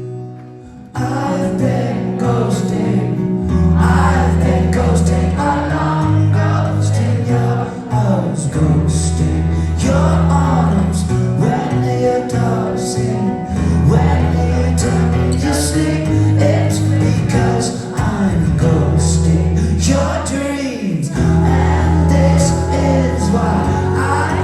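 Live rock band playing: drums, bass and guitar come in together about a second in, loud and full, with several voices singing over them.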